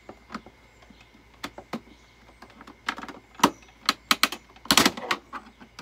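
Irregular sharp knocks and clicks from a hand tool prying and knocking at a piece that won't come loose during demolition, coming faster and louder about three seconds in.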